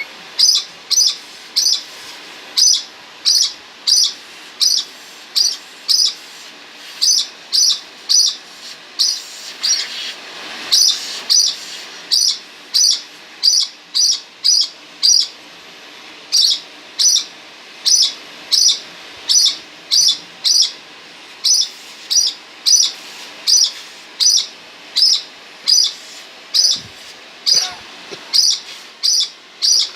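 A bird chirping in short, sharp, high calls, about two a second, in a steady rhythm broken by a few brief pauses.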